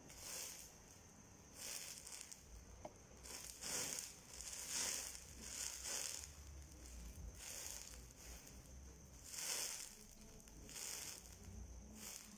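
Faint crackling and hissing from liquid burning in a patch of flames on a floor. The flames flare up in about eight irregular hissing bursts, each half a second to a second long.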